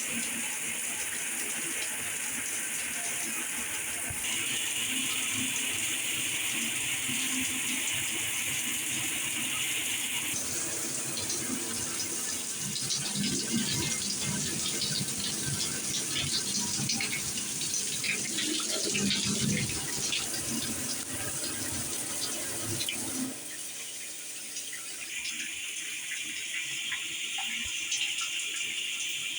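Water spraying from a Mainstays six-setting plastic showerhead (1.8 GPM). The hiss changes abruptly several times as the spray pattern is switched, and is splashiest through the middle stretch.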